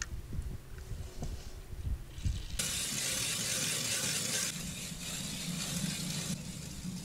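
Hand-cranked ice auger drilling a hole in lake ice: a steady grinding of the blades cutting through the ice starts about two and a half seconds in and stops near the end. A few light knocks come before it.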